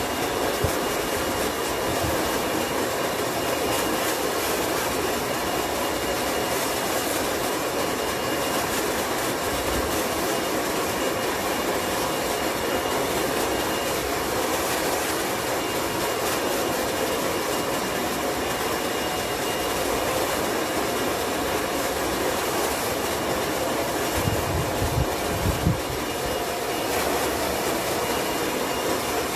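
A steady, loud rushing machine noise with a faint high whine running through it, and a few low knocks near the end.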